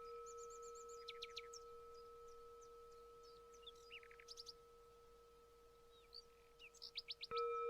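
A bell's long, steady ring slowly fading, struck again near the end. Small birds chirp over it in short quick series.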